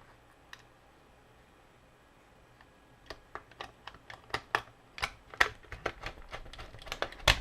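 Hard plastic parts of an action figure clicking and knocking as they are handled and fitted together, irregular sharp taps starting about three seconds in and growing busier, with one louder knock near the end.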